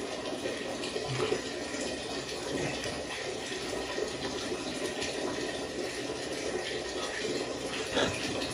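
Water running steadily, with a brief knock about eight seconds in.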